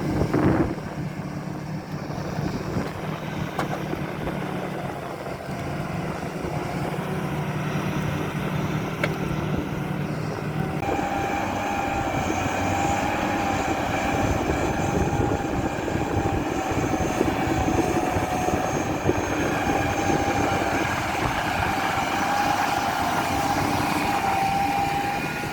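Large farm tractor engine running steadily under load while ploughing. About eleven seconds in, the sound changes and a steady high whine rises above the engine drone.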